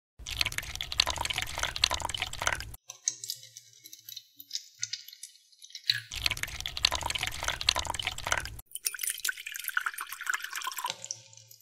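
Water poured from a small plastic cup into a hard plastic divided tray: two pours of about two and a half seconds each, with scattered drips between them and a lighter third pour near the end.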